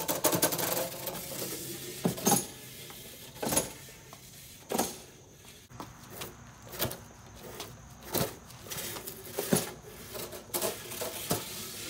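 Repeated pull-start attempts on a two-stroke 42cc Homelite chainsaw engine: the recoil starter gives a short, sharp rasp every second or two and the engine does not catch. It is hard to start because it has no choke and its chain drive is always engaged, with no clutch.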